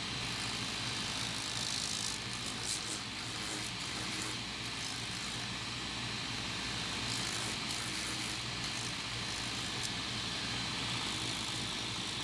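Electric shoe-repair machine running steadily with a motor hum and a whirring hiss. Brief scratchy grinding patches come a few times, as work is pressed against it.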